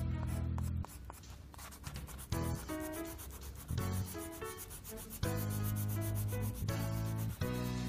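Crayon scribbling on a paper colouring page: a fast, even run of back-and-forth scratching strokes as an area is filled in with colour, over light background music.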